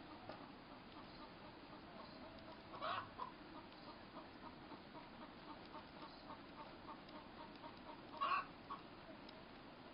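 Faint animal calls: two short, louder calls about five seconds apart, the first about three seconds in, over a steady soft ticking of about three a second.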